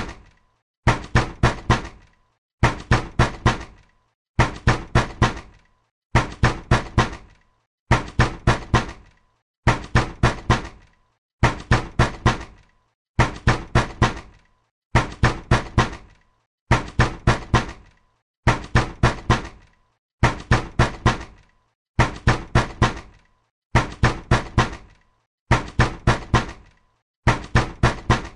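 Angry, insistent knocking on a door: quick groups of about four hard knocks, repeated every second and a half or so with short pauses between.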